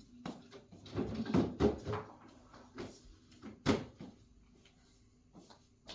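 Knocks and clatters from handling chair parts and loose hardware: a quick cluster about a second in, one sharp knock near the middle, then a few faint taps.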